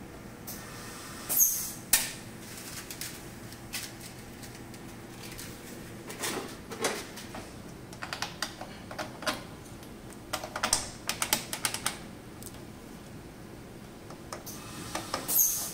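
Screwdriver working the screws of a metal exhaust-fan grille on a sheet-metal machine panel: irregular small metallic clicks, taps and scrapes, with quick runs of clicking in the middle and a sharper click near the end.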